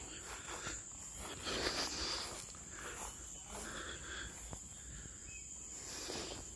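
A steady high drone of insects, with scattered footsteps and rustling through garden vegetation.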